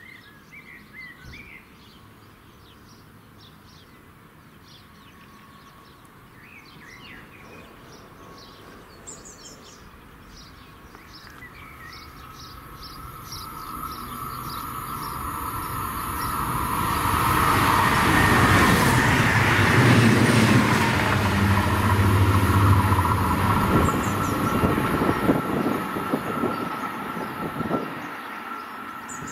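Stadler Flirt electric multiple unit approaching and passing on the main line: a rumble of wheels on rail swells over several seconds, peaks just past the middle, then eases, with a steady high whine alongside. Birds chirp before the train arrives.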